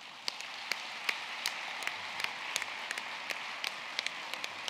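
Audience applauding: a dense, steady patter of many hands clapping, with single louder claps from close by standing out about two or three times a second.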